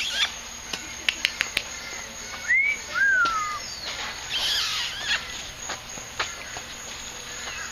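Outdoor ambience with birds chirping: a few sharp clicks about a second in, then two short whistling calls around three seconds, one rising and falling and one falling, and a burst of high chirps a little later.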